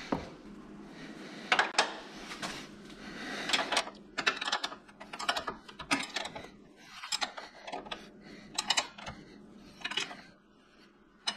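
Irregular metallic clicks and knocks of hand tools being handled, with some rustling in between.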